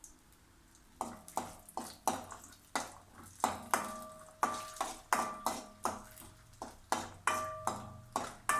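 Metal spoon stirring cashews frying in ghee in a kadai, knocking against the pan about two or three times a second, with some strikes leaving a short ringing note. The knocking starts about a second in.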